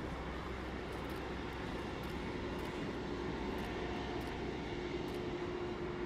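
Boeing 747-400 freighter's four turbofan engines running steadily at low thrust as the jet taxis, a continuous jet rumble with a steady tone in it.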